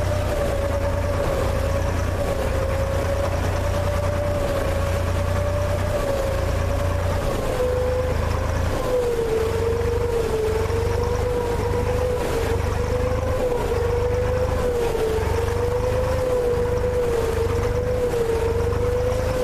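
Small motorized sampan's engine running steadily underway: a low drone under a wavering mid-pitched whine that drops slightly about halfway through.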